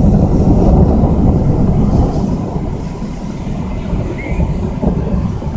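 Thunder rumbling after a nearby lightning strike: a loud, deep, rolling rumble that eases off a little about halfway through.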